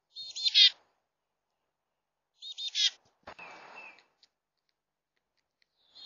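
Chickadee calling: two short bursts of high, buzzy notes about two seconds apart, followed by a brief rustling noise.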